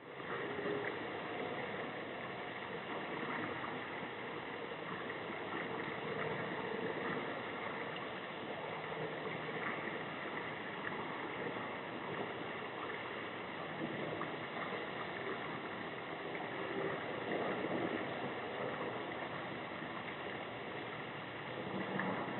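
Steady outdoor background noise: an even rushing sound like running water, with faint steady high tones over it.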